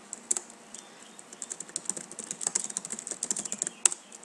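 Typing on a computer keyboard: a few scattered key clicks, then quick runs of keystrokes, with one sharper click near the end.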